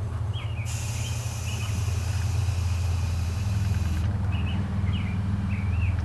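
Air compressor motor running steadily while it inflates a motorcycle tubeless tire to seat the bead, with a hiss that comes and goes.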